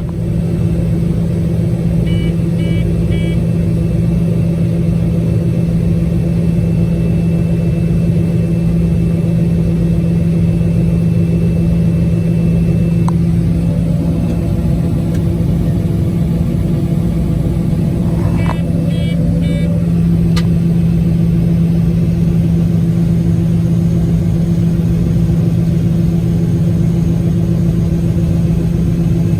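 A heavy vehicle engine running at a steady speed, heard from close by, probably from inside the cab. Short groups of electronic beeps sound twice, once about two seconds in and again past the middle.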